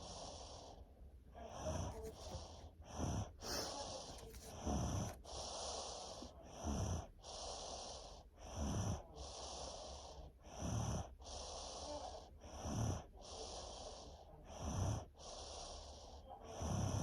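Snoring: a loud, low snore about every two seconds with a breathy hiss between snores. The snoring comes with congestion from strep throat and a head cold.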